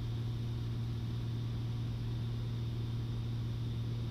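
Piper Cherokee Six's six-cylinder Lycoming engine and propeller droning steadily in cruise flight, heard from inside the cabin as an even low hum.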